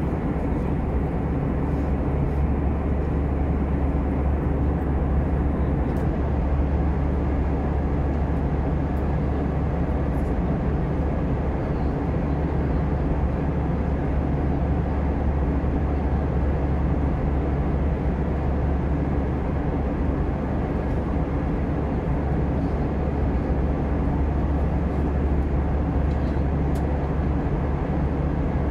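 Steady cabin noise inside an Airbus A320 in flight: a low, even drone from the engines and the air rushing past the fuselage.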